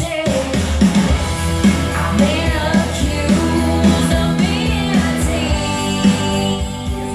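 A pop-rock song with a lead vocal and a steady beat, played back loud through Bose S1 Pro PA speakers with two Bose B1 bass modules, with sustained bass notes.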